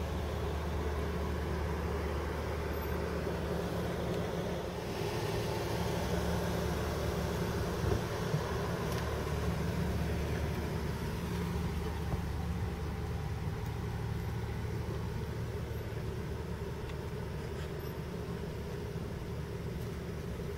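Heavy truck diesel engine idling with a steady low hum, joined by a brief rush of hiss about five seconds in and two short knocks near eight seconds.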